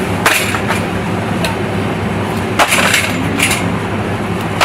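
Packaged cheese boxes and plastic tubs knocking and clattering as they are handled and dropped into a wire shopping trolley, about five short rattles over a steady low hum.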